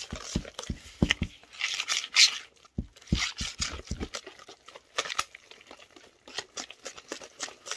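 Hand wire whisk beating mashed sweet potato pie filling in a metal mixing bowl: quick, irregular scraping and clicking of the wires against the bowl.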